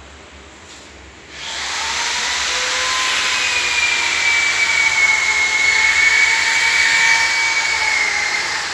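A termite-treatment machine starts about a second in and runs steadily: a loud hiss with a steady motor whine over it.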